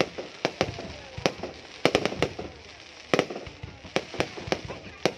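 Aerial fireworks shells bursting in an irregular rapid series of sharp bangs, about three a second, with a crackling hiss between the reports.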